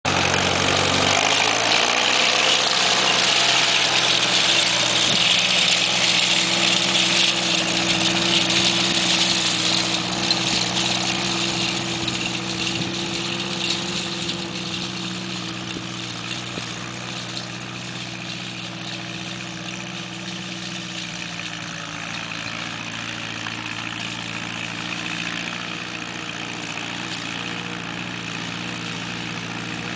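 1952 Case VAC tractor's four-cylinder engine running steadily while it pulls a spring-tooth digger through loose dirt, fading from about ten seconds in as the tractor moves away.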